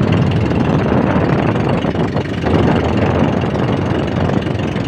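Motorboat engine running steadily under way, with a loud, even rush of water and wind.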